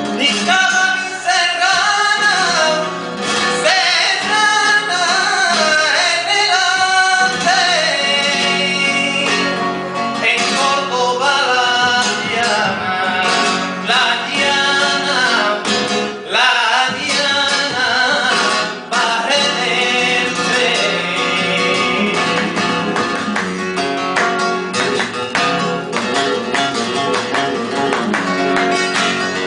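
Male flamenco singer (cantaor) singing long, wavering ornamented lines over flamenco guitar accompaniment.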